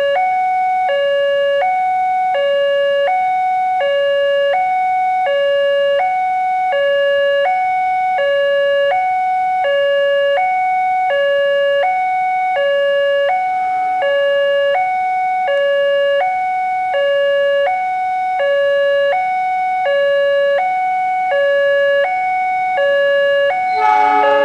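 Indonesian railway level-crossing alarm sounding its electronic two-tone ding-dong, a high and a low note alternating steadily about every 0.7 s, warning that a train is approaching. Near the end a louder horn joins in as the approaching locomotive reaches the crossing.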